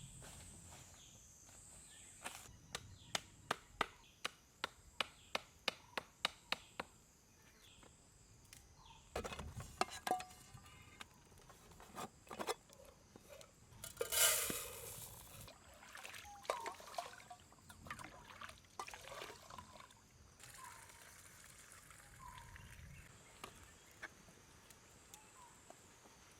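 A run of about a dozen sharp knocks, roughly two a second, then scattered softer knocks and a brief rush of noise about midway, over a steady high-pitched drone.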